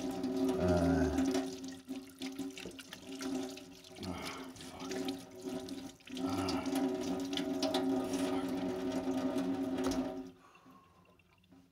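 Water running from a kitchen tap into a sink, a steady rushing with a steady tone in it. The flow dips a couple of times and is shut off about ten seconds in.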